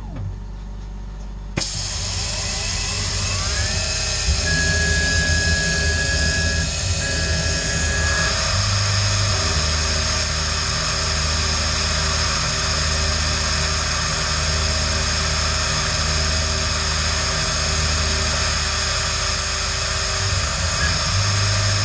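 Tormach 440 CNC mill thread milling M8 x 1.25 threads in an aluminium plate, the spindle and threadmill running with a steady whine. A low hum swells and fades about every two seconds as the tool works round in the hole. The sound starts abruptly and steps up about a second and a half in.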